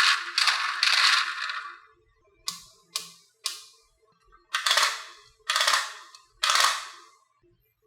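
Marbles clattering down a HABA wooden marble run in a series of sharp rattling bursts that fade quickly: a cluster at the start, three short quick hits in the middle, and three longer rattles about a second apart near the end.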